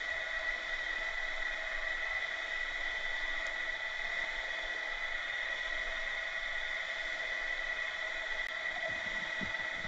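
Steady underwater hiss heard through a submerged camera, with a faint steady high whine over it.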